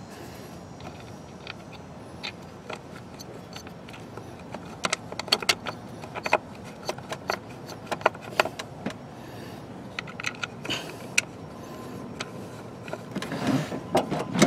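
Scattered light clicks and rattles of plastic and metal parts being handled as a replacement ignition coil is fitted onto its bracket in an engine bay, with a louder spell of handling noise near the end.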